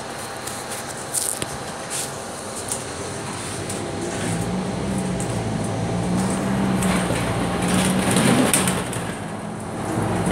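Scania K310UB city bus's nine-litre five-cylinder diesel engine heard from inside the bus: idling at first with a few light rattles, then from about four seconds in the engine note rises and grows louder as the bus pulls away and accelerates, easing briefly near the end before picking up again.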